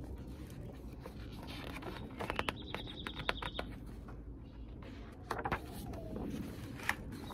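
Paper pages of a large picture book rustling and flapping as they are turned and opened out, with short clicks about two seconds in and again past five seconds, over a low steady background rumble.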